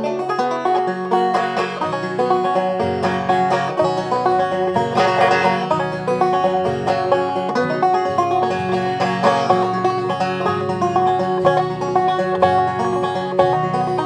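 Banjo fitted with a clear drumhead, picked in a fast, steady stream of bright plucked notes.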